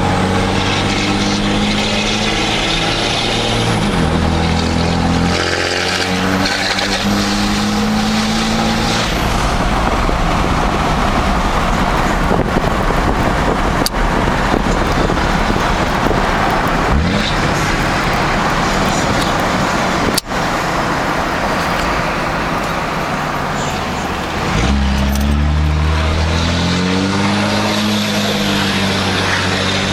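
Dodge Cummins turbo-diesel pickup driving, its engine note rising and falling several times in the first few seconds and again near the end. In between, an even rushing noise of the truck at speed covers the engine.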